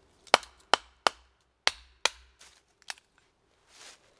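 Large camp knife chopping into a stick of firewood: six sharp, dry strikes in quick succession, the last one lighter, followed by a soft rustle.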